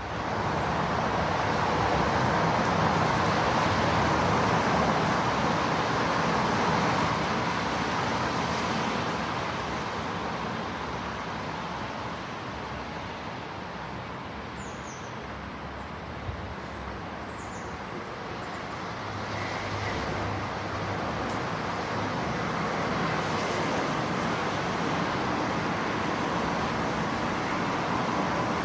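Street traffic about 50 m off in light rain: a steady wash of passing vehicles, loudest in the first several seconds, easing in the middle and swelling again toward the end.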